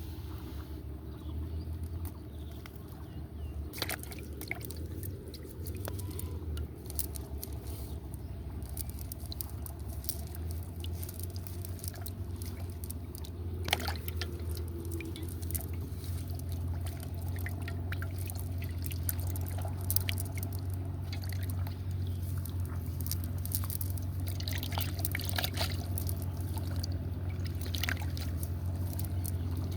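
Water splashing, dripping and trickling in scattered small bursts and clicks, over a steady low hum.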